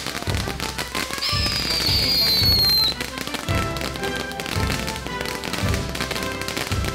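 Ground fountain firework crackling over background music with a steady bass beat. About a second in, a high whistle sliding slowly down in pitch rises above both and cuts off just before the three-second mark.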